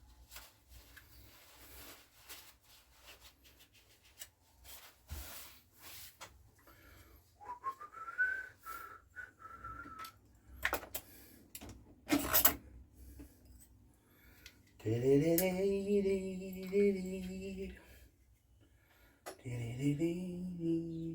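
A man whistling a short rising note, then humming two held notes, over small clicks and taps of parts and tools being handled, with one sharp knock about halfway through.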